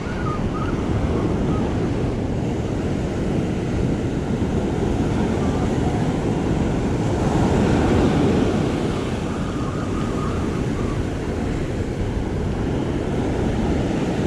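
Ocean surf breaking and washing up the beach close by, with wind buffeting the microphone, in a steady rush that swells a little midway.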